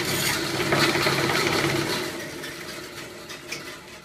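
Bandsaw running and cutting through a half-inch wooden dowel, then the motor winds down and fades over the last two seconds.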